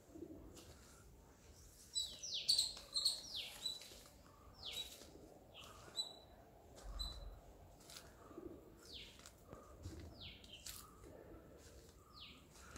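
Small birds chirping in the garden trees: repeated short calls that each sweep quickly downward in pitch, mixed with brief higher peeps, the busiest flurry about two seconds in.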